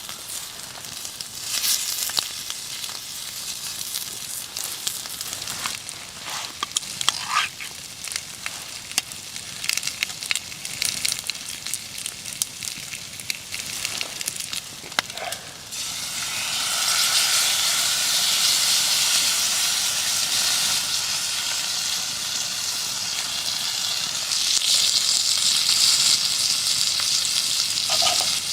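Food frying in a hot pan: crackling and stirring sounds at first, then from about halfway a steady, louder sizzle.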